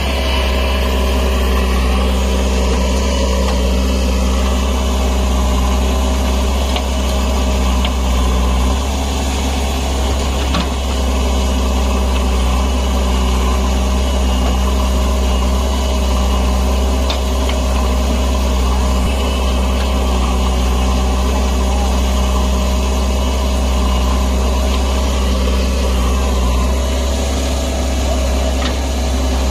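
Diesel engines of a JCB backhoe loader and an Eicher tractor running steadily as the backhoe loads soil into the tractor's trolley. A brief knock about ten seconds in.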